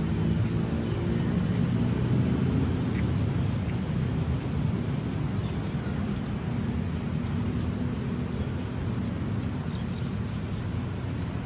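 Steady low rumble of motor traffic with a faint engine hum.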